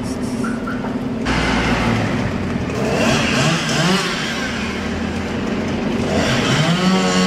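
Street traffic: motor vehicles running and accelerating past, their engine pitch rising around three seconds in and again near the end.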